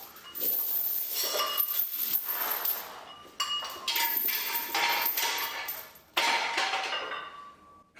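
Metal weight plates clanking and ringing against each other in three clattering bursts, each fading out as the ring dies away.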